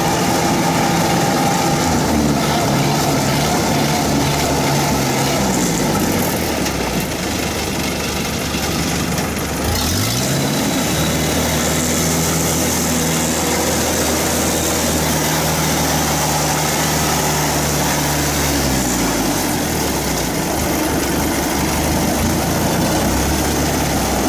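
Isuzu 93 diesel engine of a tracked rice-hauling tractor running under way. Its pitch drops about six seconds in, revs back up near ten seconds, holds steady, then falls again toward twenty seconds.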